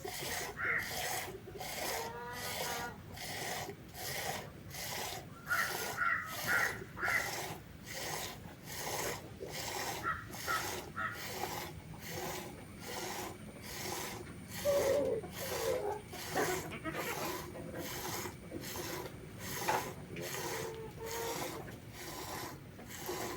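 Goat being milked by hand, the teat squeezed rather than pulled: steady rhythmic squirts of milk into a vessel, about one and a half a second. A few short animal calls come in now and then.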